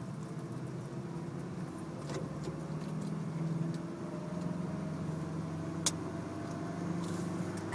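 Steady hum of a car's engine and road noise as heard inside the cabin, with one sharp click about six seconds in.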